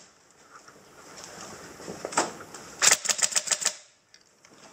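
Airsoft gun firing a rapid automatic burst of about eight shots in under a second, about three seconds in, after a single shot about two seconds in.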